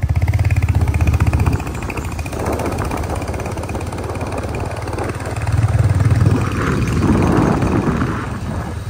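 Royal Enfield Hunter 350's single-cylinder engine pulling away and riding off slowly, its beat picking up again about six seconds in.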